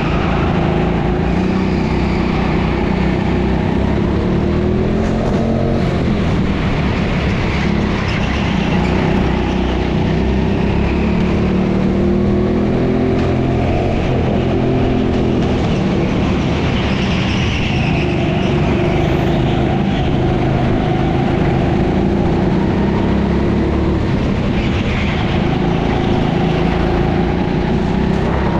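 Go-kart racing at speed, its motor note rising and falling as it slows for corners and accelerates out of them.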